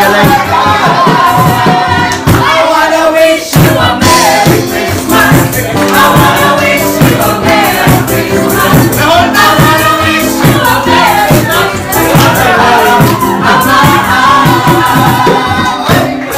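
A group of restaurant cooks and waiters singing together live, with a steady beat under the voices.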